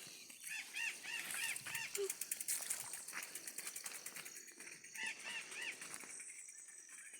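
A bird giving two quick runs of short, repeated calls, about five in a row near the start and three more about five seconds in, over a fast, high-pitched ticking or buzzing.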